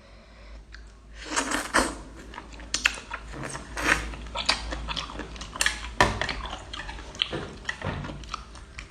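Close-up chewing and biting of raw octopus, with irregular crunching clicks and short bursts of mouth noise.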